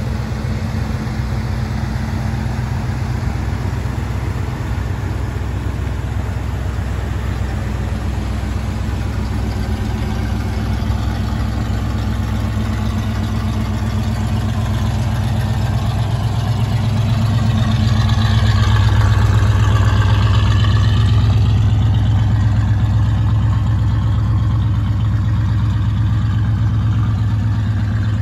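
1985 Chevrolet G20 van's engine idling steadily, growing louder for a few seconds past the middle and then easing back.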